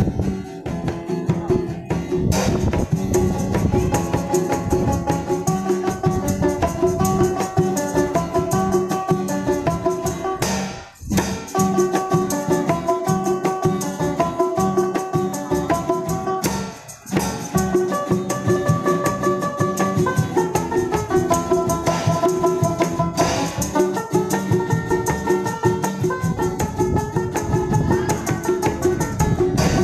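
Street band playing an up-tempo instrumental on acoustic guitars with tambourine percussion, a fast, steady rhythm under a stepping melody. The music drops out briefly twice, about 11 and 17 seconds in.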